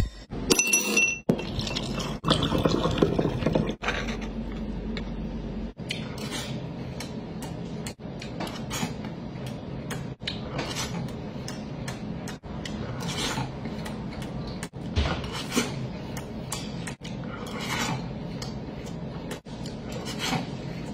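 A metal spoon clinking and scraping against a clay pot and dishes, in many short light taps, with a few louder knocks in the first few seconds.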